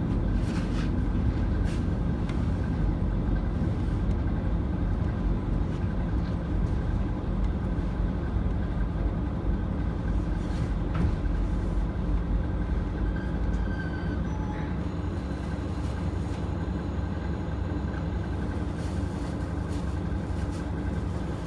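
Diesel railcar standing still with its engine idling, heard from inside the passenger cabin as a steady low hum with a few faint clicks. The hum eases slightly a little past halfway.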